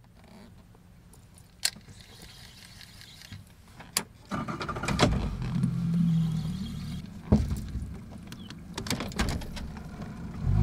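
Handling noise aboard a small fishing boat: three sharp clicks and knocks, over a low mechanical hum that grows louder about four seconds in.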